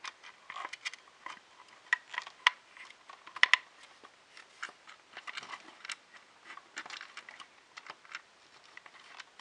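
Irregular light clicks and taps of small hard parts being handled and fitted during printer assembly, a few sharper knocks among them.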